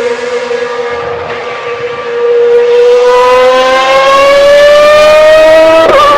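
The 3.0-litre V12 engine of a 1995 Ferrari 412 T2 Formula One car, giving a loud, high-pitched wail. The note eases briefly, then climbs steadily in pitch as the car accelerates.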